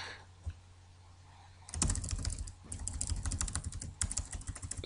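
Computer keyboard keys tapped in a rapid run of many presses a second, starting about two seconds in: Backspace being pressed repeatedly to delete a line of text.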